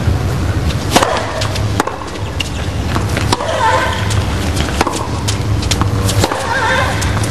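Tennis rally: rackets striking the ball about every three-quarters of a second, with a steady low crowd rumble underneath.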